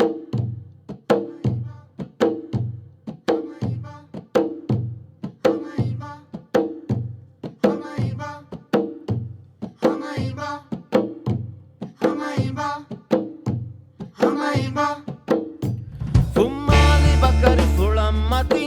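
Background music: a rhythmic pattern of struck or plucked notes, about two a second, joined by a fuller, louder arrangement with deep bass near the end.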